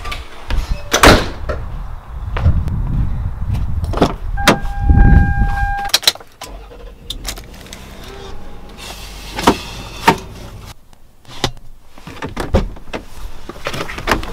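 Car door and handling noises: several knocks and clicks, with a low car engine rumble a few seconds in. A short, steady beep sounds about four to five seconds in.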